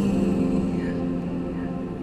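Background song with a soft, slow feel: a single note is held and slowly fades over quiet sustained accompaniment.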